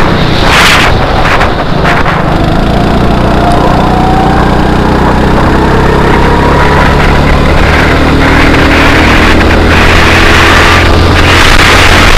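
Go-kart engine running hard under the seat while the kart accelerates down a straight, its pitch climbing steadily, with heavy wind buffeting on the onboard microphone. The sound is loud and distorted.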